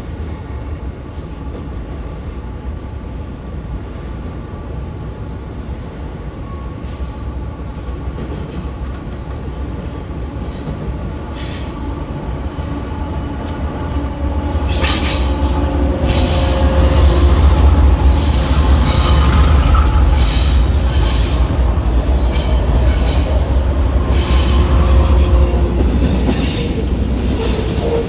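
Freight train led by diesel locomotives passing close, the engines running with a deep rumble and the wheels squealing in steady tones on the curving track. It grows louder about fifteen seconds in as the locomotives go by, and loaded ballast hopper cars follow, clicking over the rails.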